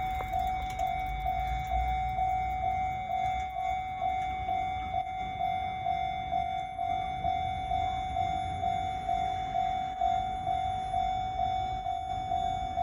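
Japanese railway level crossing's electronic warning bell ringing, a steady repeating ding a little over twice a second.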